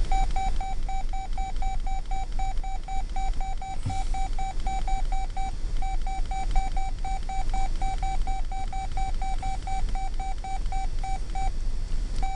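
Electronic railroad grade-crossing bell ringing fast, about four dings a second, over a steady low rumble. It breaks off briefly about halfway through and stops about a second before the end.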